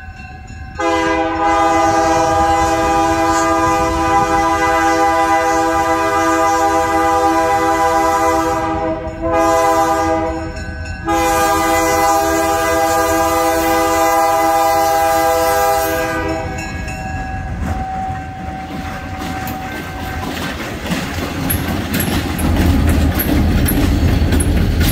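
Diesel locomotive's multi-note horn sounding the grade-crossing signal: a long blast, a short one about nine seconds in, and a final long blast that stops about sixteen seconds in. Near the end the locomotive's engine rumbles and its wheels click over the rail as it passes close by.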